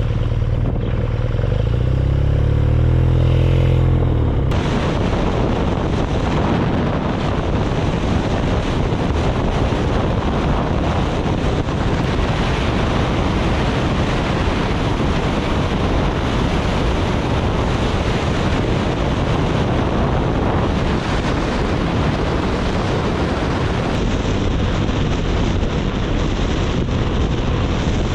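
BMW R nineT's boxer twin engine pulling with its pitch rising for the first few seconds. About four seconds in, a loud, steady rush of wind noise on the microphone at freeway speed takes over and buries the engine.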